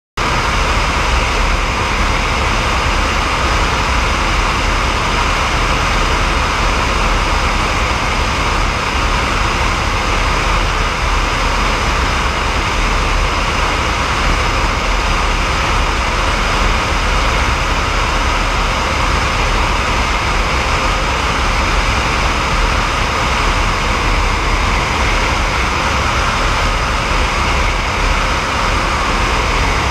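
Eurocopter AS350 B3e helicopter in flight: its Turbomeca Arriel 2D turboshaft and rotor run steadily, giving a high, even whine over a continuous rushing noise.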